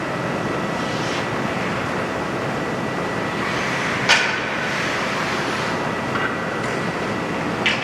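Steady ice-rink noise during a hockey game, with two short sharp scrapes or clacks, about four seconds in and again near the end.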